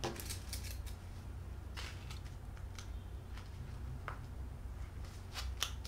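Fabric and PVC pieces being handled and smoothed flat on a cutting mat: scattered rustles and light taps, a few sharper clicks near the end, over a low steady hum.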